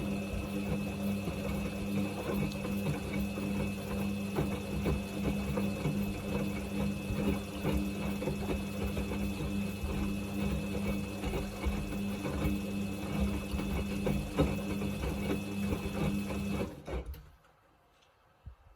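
Samsung washing machine running on its Quick 29 cycle: a steady motor hum with a thin high whine and irregular crackling over it, cutting off abruptly near the end.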